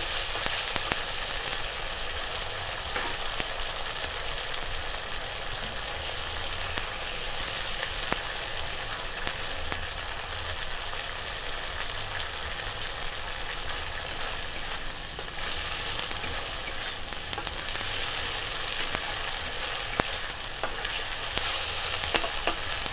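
Ground onion paste sizzling steadily in hot mustard oil in a kadai, with a few clicks and scrapes from a metal spatula stirring it.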